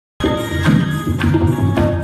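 Harmonium playing held chords into a microphone, with a few sharp drum strokes, starting abruptly just after the start.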